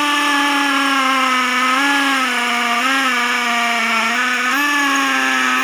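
Skil 20V cordless hammer drill running steadily under load as its masonry bit bores into concrete, a loud whine whose pitch lifts briefly three times as the load shifts. It cuts off right at the end.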